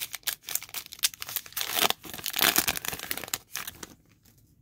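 Wrapper of a trading-card pack crinkling and tearing as it is ripped open by hand: a quick run of crackles, loudest in the middle, that stops about four seconds in.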